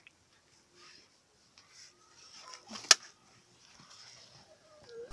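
Faint rustling and handling sounds, with one sharp click about three seconds in and another at the very end.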